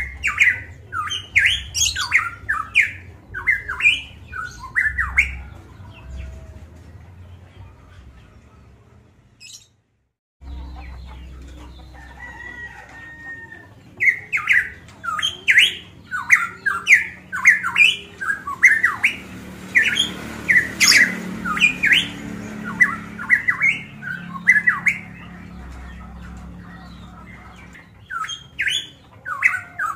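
Caged pitohui (cucak emas papua) calling in rapid runs of short, loud, up-and-down whistled notes. The calling thins out and then breaks off in a brief dead silence about a third of the way through, and picks up densely again soon after.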